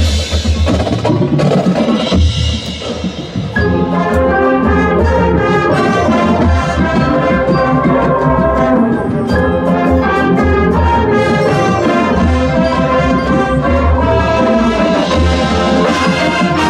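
Marching band playing on the field: percussion carries the first few seconds, then the full brass section enters with loud sustained chords about three and a half seconds in, drums continuing underneath.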